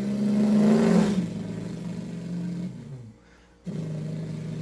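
A man imitating a vehicle engine with his voice. A steady droning tone drops in pitch about a second in and trails off by about three seconds, like a vehicle going past. After a short pause a lower steady drone starts up again.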